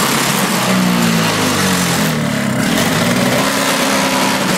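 Toro single-stage snowblower's two-stroke engine running just after a cold start, its speed rising and falling unevenly rather than settling to a steady idle.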